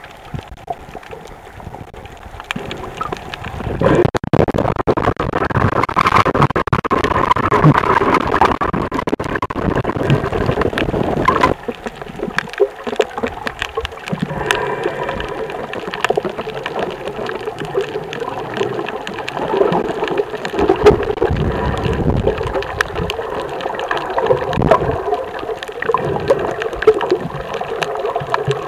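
Underwater recording of a scuba diver's exhaled bubbles rushing and gurgling past the camera. A long loud rush with crackle starts a few seconds in and cuts off sharply near the middle, followed by quieter gurgling and crackle with another swell later on.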